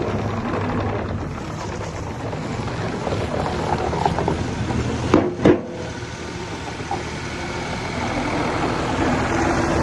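Diesel engine of a JCB 50Z-2 mini excavator running steadily, with two sharp knocks close together about halfway through.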